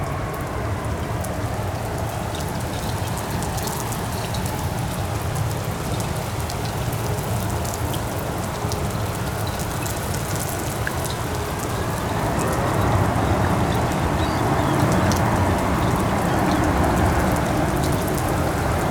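Heavy rain pouring down, with many separate drops striking close by over a steady rush. The rush grows louder about two-thirds of the way through.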